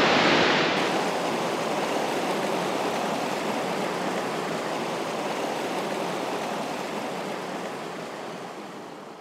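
Mountain creek water rushing over boulders: a steady rushing that slowly fades out toward the end.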